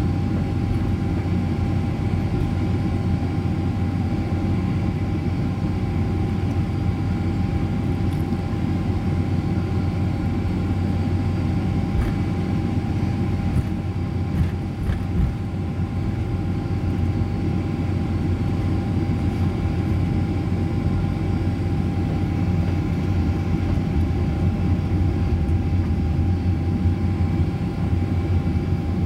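Cabin noise inside a Boeing 747-400 taxiing on the ground: a steady low rumble from the engines and airflow, with a constant whine.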